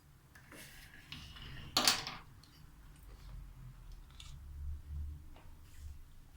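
Small handling noises of food preparation: light rustling and clicks, with one louder, brief scrape or rustle about two seconds in.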